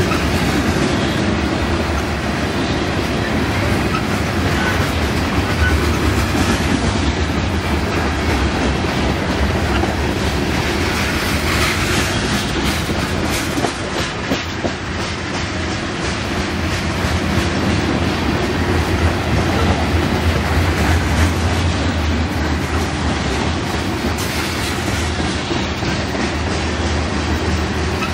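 Freight train of covered hopper cars rolling past at close range: a loud, steady rumble of wheels on rail, with a run of sharp wheel clicks over the rail joints about halfway through.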